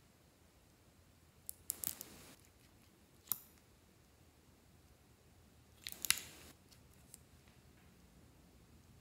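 Small crackly plastic clicks in two short clusters, about two seconds in and about six seconds in, with one sharp click in between: the cap of a glass nail polish bottle being twisted off and later screwed back on.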